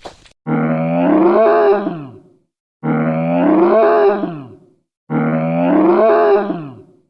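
A large animal's drawn-out, pitched call, heard three times in identical copies about two and a half seconds apart, each sliding down in pitch at its end.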